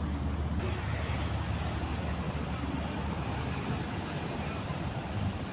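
Steady outdoor noise of road traffic, with faint voices in the background.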